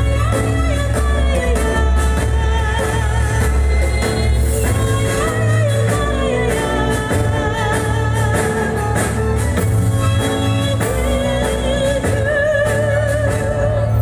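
Two women singing a duet into microphones, with vibrato on held notes, over an amplified accompaniment with a strong bass line, heard through a PA system.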